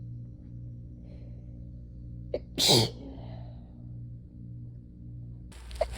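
A single human sneeze about two and a half seconds in: a quick catch of breath, then one sharp, loud burst with a falling tail, over a steady low hum. Near the end the background changes abruptly and the start of another sneeze is heard.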